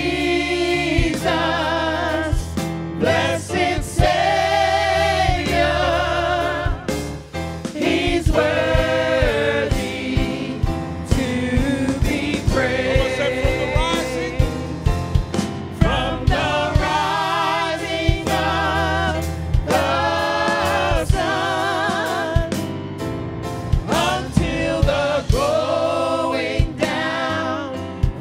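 Live gospel song: several voices singing with vibrato over a drum kit and a band.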